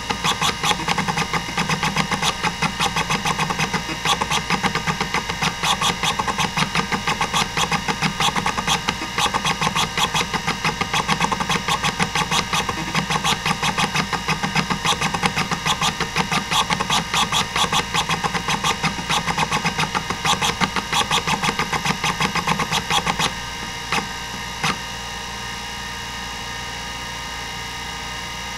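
Hitachi DK505-2 26 MB stepper-motor hard drive seeking during a random-access benchmark: the head stepper chatters in rapid, irregular clicks. About 23 seconds in the seeking stops, two more clicks follow, and a steady whir is left.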